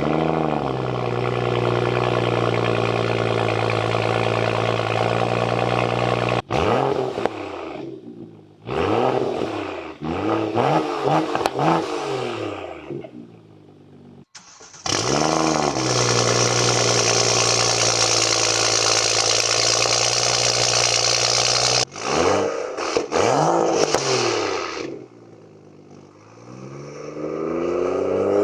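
BMW 435 engine and exhaust being revved: long stretches held at steady high revs, broken by several quick throttle blips whose pitch rises and falls. The sound breaks off abruptly a few times, drops low about two-thirds of the way through and climbs again in a rising rev near the end.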